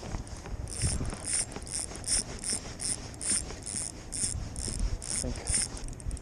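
Spinning reel cranked under the load of a hooked king salmon, its gears clicking in short regular bursts about three times a second.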